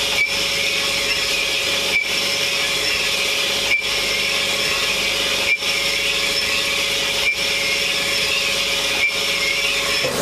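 Trigger-held pressure spray gun hissing steadily, with a faint hum under it and a brief dip in the hiss about every two seconds.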